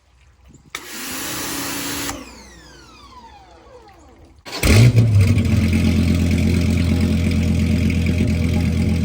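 Heads-and-cam Dodge Viper V10 being started: a whirring crank for about a second and a half, which winds down in falling tones. The engine then fires about four and a half seconds in with a loud flare and settles into a steady, loud idle.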